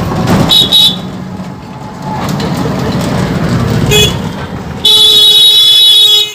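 Vehicle horns honking over steady street and engine noise. There is a short toot about half a second in and another brief one about four seconds in. Near the end a loud horn blast is held for about a second and a half.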